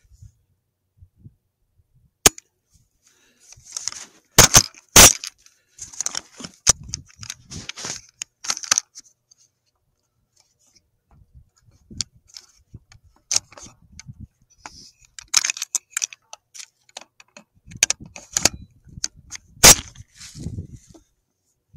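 Handling noise on a thermal rifle scope's built-in microphone: irregular sharp clicks and rustling, with a tight cluster of loud clicks around four to five seconds in and another loud click near the end.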